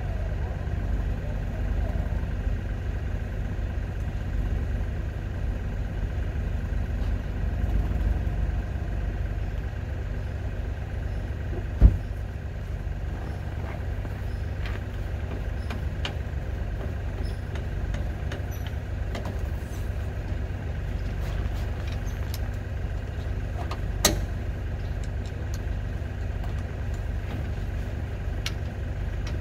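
Compact tractor's diesel engine running steadily. A sharp knock about 12 seconds in, the loudest sound here, and a smaller one about 24 seconds in.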